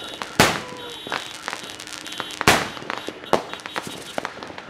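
Aerial fireworks bursting: two loud bangs about two seconds apart, with smaller pops and crackles between and after them.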